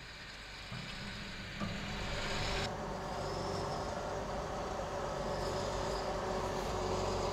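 New Holland T7.315 HD tractor's six-cylinder diesel engine running as the tractor drives slowly onto a weighbridge. It grows louder over the first two seconds, then runs steadily.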